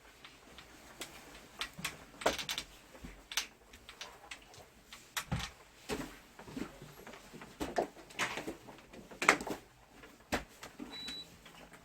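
Irregular clicks, knocks and rattles of hard parts and tools being handled during air-conditioner reassembly, with a short high beep near the end.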